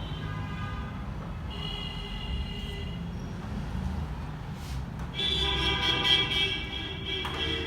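Vehicle horns honking over a steady low traffic rumble: a shorter blast at about one and a half seconds, then a louder one lasting about two seconds from about five seconds in.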